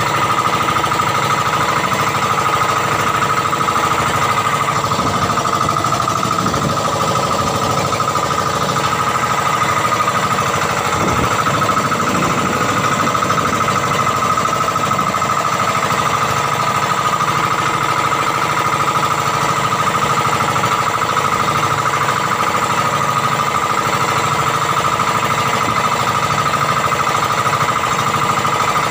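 Engine of a motorized outrigger boat running steadily under way: a loud, unbroken drone with a steady high tone in it.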